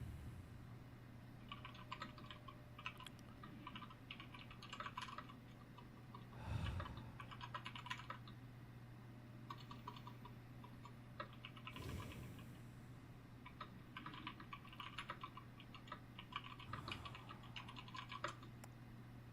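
Computer keyboard typing in bursts of quick keystrokes with short pauses between them. Soft breaths come in about every five seconds, over a steady low hum.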